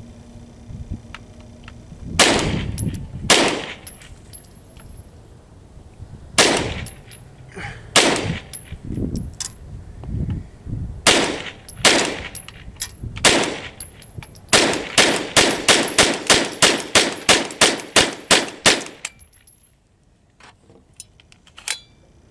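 Suomi M31 9mm rifle firing: a few single shots spaced a second or more apart, then a quick steady string of about three shots a second that stops suddenly when the 20-round magazine runs empty.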